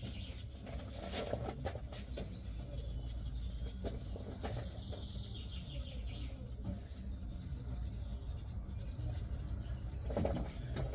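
Faint clicks and scrapes of hand tools working on a steel-wire-armoured cable, over a low steady rumble with birds chirping faintly.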